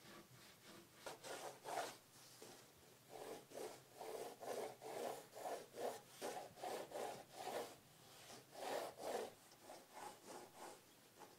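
Pencil sketching on a large sheet of watercolour paper: faint runs of short scratchy strokes, about two or three a second, with brief pauses between the runs.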